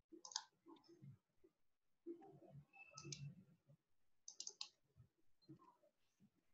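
Near silence over an online-meeting audio feed: faint room tone with a few scattered clicks and small handling noises.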